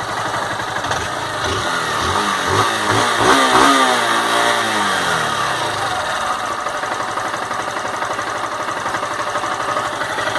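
Honda CG 160 Fan's single-cylinder four-stroke engine, warm and on its stock exhaust, revved up about two seconds in and then falling back to a steady idle by about six seconds in. The owner hears none of the annoying engine noise the 160 line is complained about.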